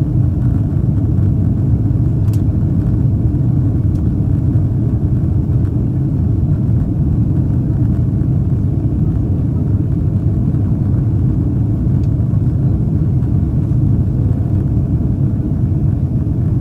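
Steady low rumble of engine and airflow noise heard inside the passenger cabin of a Boeing 767 climbing after takeoff.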